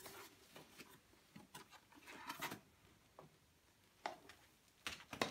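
Faint handling noises as a Krups Dolce Gusto Mini Me capsule coffee machine is turned over in the hands: light rubbing and small knocks of its plastic housing, with a sharper knock about four seconds in and another near the end.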